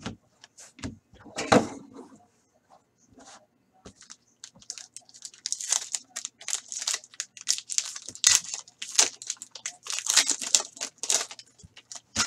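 Hockey trading cards being handled and flipped through by hand: card stock sliding and rustling against card stock in quick, irregular strokes that come thick and fast from about four seconds in.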